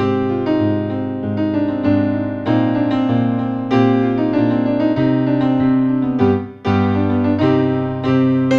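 Instrumental music, keyboard chords played in a steady rhythm with a new chord about every half second. The sound drops out briefly about six seconds in.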